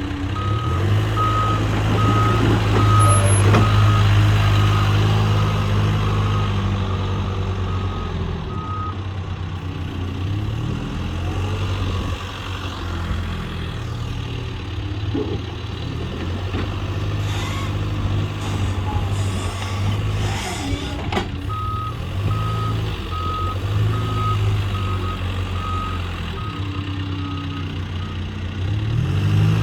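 John Deere 410K backhoe loader's diesel engine running and working, its revs rising and falling, with the backup alarm beeping about twice a second during two spells of reversing, near the start and again in the last third. A few knocks and clanks from the machine come through.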